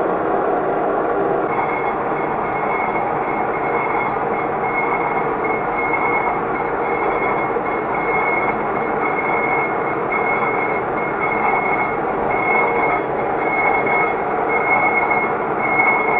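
Lathe turning a worn brake disc: the cutting tool makes a steady grinding scrape across the disc face. From about a second and a half in, a high ringing tone pulses on and off about twice a second.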